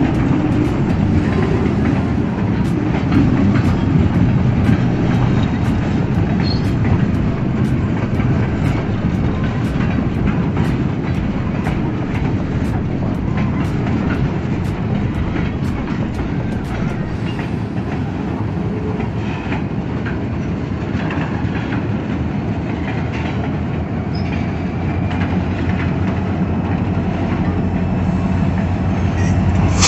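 A freight train of boxcars rolling past, with steady rumbling and the wheels clicking over the rail joints. Near the end, the low drone of the train's Kansas City Southern diesel locomotives comes in as they draw closer.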